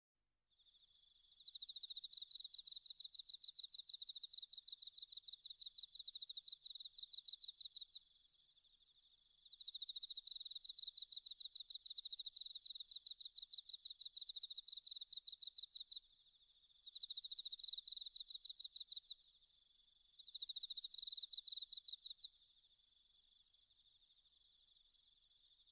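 Cricket chirping: a high, rapid pulsed trill in bouts of a few seconds, stopping and starting again several times, with a fainter trill carrying on near the end.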